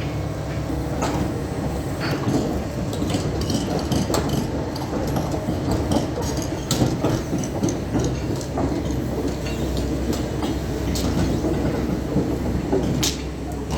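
Doosan DX420 hydraulic excavator running, its engine a steady low drone under a stream of metal clanks and rattles that come thickest in the first half.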